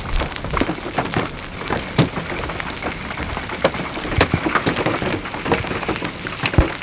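Rain and hail hitting a pickup truck, heard from inside the cab: a steady patter broken by irregular sharp cracks of single hailstones, the loudest about four seconds in and again near the end.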